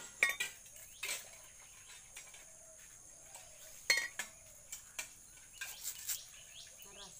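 Irregular sharp knocks and scrapes of a blade hacking and prying the fibrous husk off a fresh coconut, the sharpest hit about four seconds in. A steady high insect drone runs underneath.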